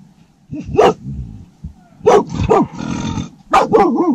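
A shepherds' dog barking in alarm, about five sharp barks with gaps between them, then a wavering cry near the end. It is reacting to a wild animal that has just passed the camp, which the shepherds take for a big cat.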